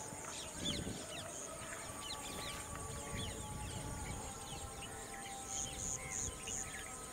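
Outdoor wetland ambience of birds calling, with many short rising chirps overlapping, over a thin steady insect buzz. Near the end, four short high notes come in a quick even row.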